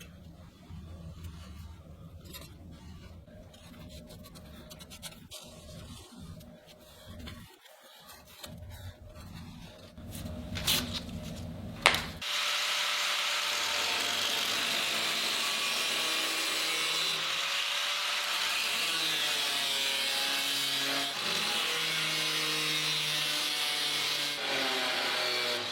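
Quiet handling with a few sharp clicks, then about twelve seconds in an abrasive power tool starts and runs steadily, working the steel of an old saw blade.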